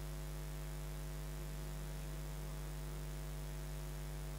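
Steady electrical mains hum in the sound system: a low, even hum with a row of fainter higher tones above it, unchanging throughout.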